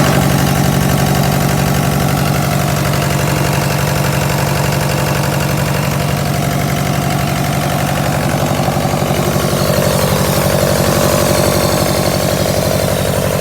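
Excavator's diesel engine running steadily at idle, a dense, even firing beat.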